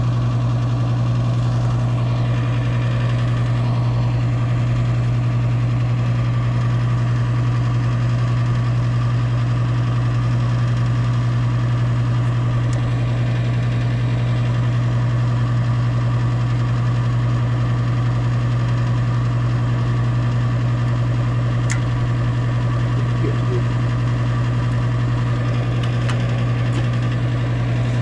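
Gas furnace running: a steady low motor hum with no change in pitch or level.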